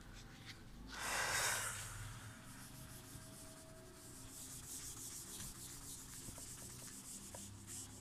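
A whiteboard eraser rubbing across the board, wiping off marker drawing in quick repeated strokes, with a louder rush of noise about a second in.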